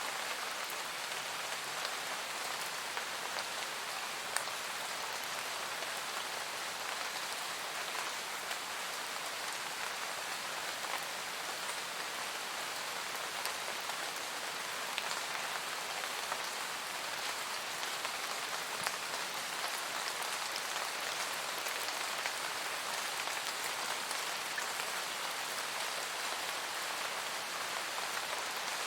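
Steady rain falling in a forest, an even hiss with scattered close drop ticks.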